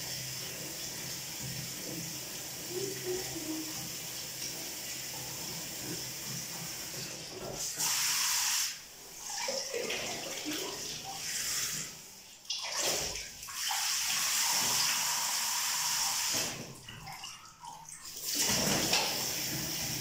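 Bathtub filling from the tap: a steady rush of water. From about seven seconds in, louder running and splashing water breaks off and starts again several times as hair is wetted under the stream.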